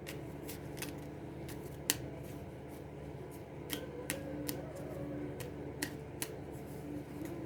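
A small deck of mini oracle cards (Fortune Cookies cards) being shuffled by hand: light, irregular clicks and snaps of card edges, over a faint steady hum.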